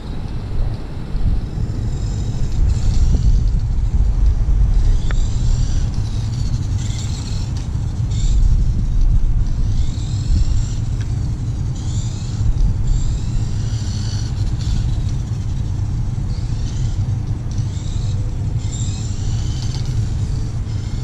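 Small electric motor and gears of an RC trike whining in repeated short bursts, rising and falling in pitch every second or two as it speeds up and slows, over a constant low rumble.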